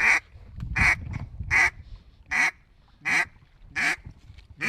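Duck quacks in a steady, even series, about seven loud quacks roughly three-quarters of a second apart, with a low rumble under the first two.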